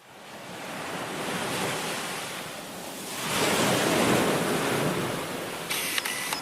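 A rushing noise fades in, swells to its loudest between three and four seconds in, then eases off, like a long whoosh or surf. A few short clicks come near the end.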